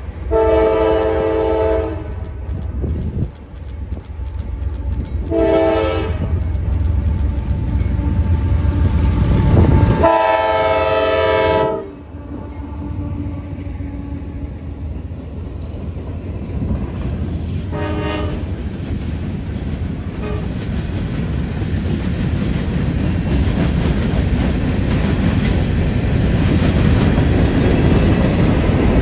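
Locomotive horn sounding a chord in four blasts: a long one, a short one, a long loud one, then a short fainter one. Under the horn, the rumble and wheel noise of the approaching train grow steadily louder.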